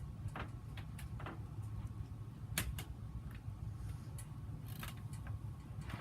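Hunter Original four-blade ceiling fan running with a steady low motor hum, with scattered light clicks and ticks throughout, the sharpest a little under halfway in.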